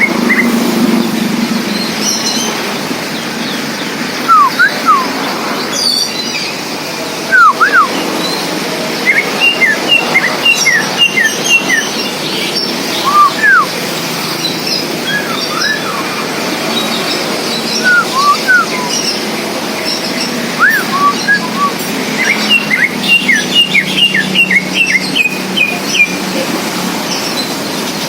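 Cucak ijo (greater green leafbird) singing loud, clear whistles: quick runs of short notes that glide up and down, with pauses between the phrases, over a steady low background noise.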